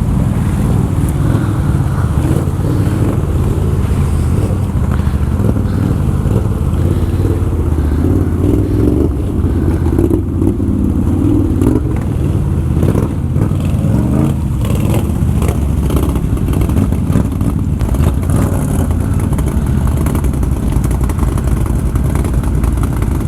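ATV engine running steadily, with a few short knocks and clatter partway through.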